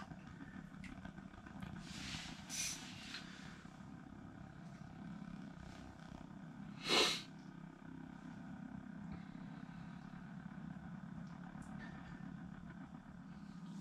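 Portable heater running with a low steady hum, with one short, louder scratchy rustle about seven seconds in.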